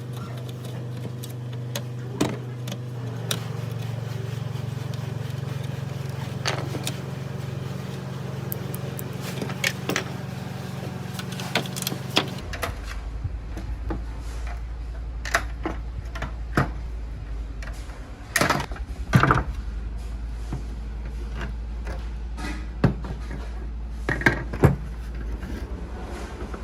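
Metal parts and hand tools clicking and knocking as an old electric fan is worked on, over a steady low hum, with a few louder knocks near the end.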